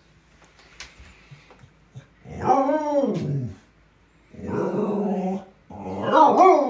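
A dog making long, drawn-out vocal calls, three in a row starting about two seconds in, each rising and falling in pitch, the last the loudest.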